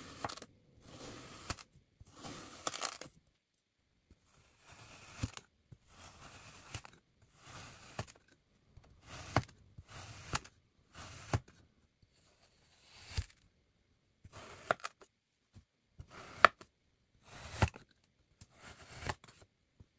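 Metal blades slicing down through moulded kinetic sand, a chef's knife and a multi-bladed cutter. There are about fourteen cuts, one every second or so, each a short hiss that often ends in a sharp tap.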